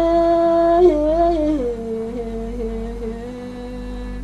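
A woman singing a Somali song unaccompanied, holding a long note, then gliding down about a second and a half in to a lower note that she sustains as it slowly fades.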